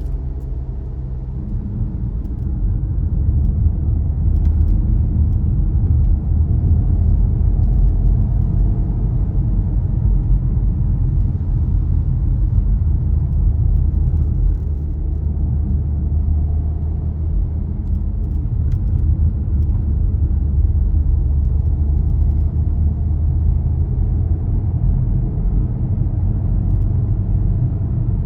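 Car driving on the road: a steady low rumble of engine and tyres, with a few faint ticks here and there.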